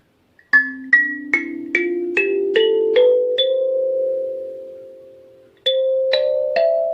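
LingTing K17Y-EQ 17-key kalimba: tines plucked one at a time in a rising scale of about eight notes, the last left ringing and slowly dying away. A second rising run of plucked notes begins near the end.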